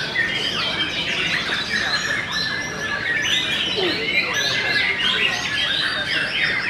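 Many caged white-rumped shamas (murai batu) singing at once in a song contest: a dense, unbroken chorus of overlapping quick whistles, trills and chirps.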